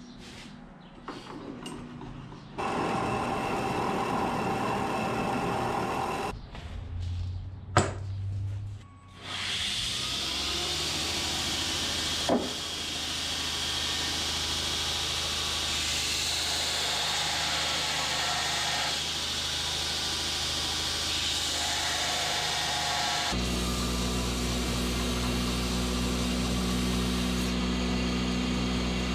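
Metal-shop power tools working steel bar stock: a horizontal metal-cutting bandsaw running, then a belt grinder grinding steel, a steady hiss. About three quarters of the way through, a strong low motor hum joins the grinding hiss, and there are a couple of sharp metal clicks in between.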